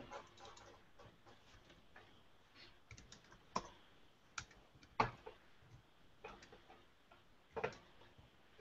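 Faint, irregular computer keyboard typing and clicks, with a few louder taps scattered through.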